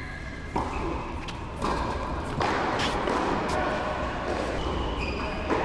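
Tennis ball struck by rackets and bouncing on the court during a rally: several sharp hits spread across a few seconds.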